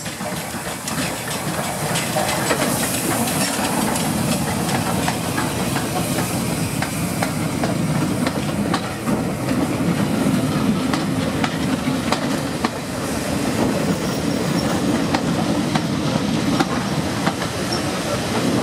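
Steam hissing from LMS Royal Scot class 4-6-0 No. 46100 as it passes in the first few seconds, then its coaches rolling by, the wheels clicking steadily over the rail joints as the train comes into the station.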